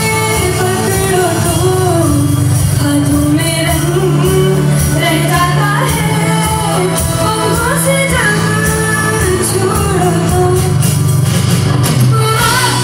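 Female vocalist singing a Hindi film song with band accompaniment, the melody gliding up and down over steady low bass notes.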